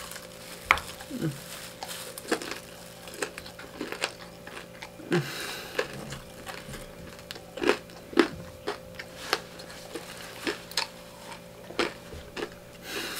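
A person biting into and chewing crispy fried chicken close to the microphone: irregular crunches and mouth clicks.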